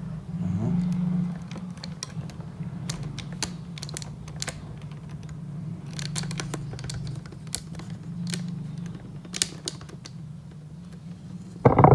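Scattered light clicks and taps of the Roland SPD-SX's plastic and metal casing parts being handled as the unit is opened, over a steady low hum.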